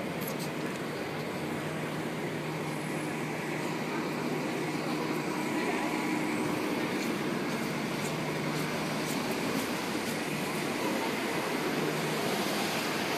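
Steady city traffic noise: a constant rumble with a low engine hum running under it.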